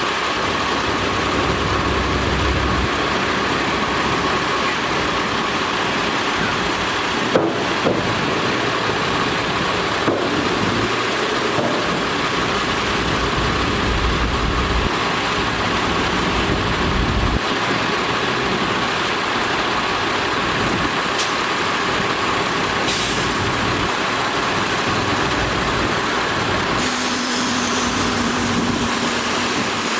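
Heavy diesel earthmoving machinery running steadily under load, with a faint steady whine over the engine noise. A couple of sharp metallic knocks come about a third of the way in.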